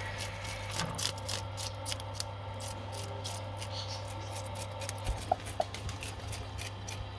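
A plastic fish scaler scraping the scales off a whole fish on a wooden chopping board, in quick repeated strokes, several a second, which thin out after the first few seconds.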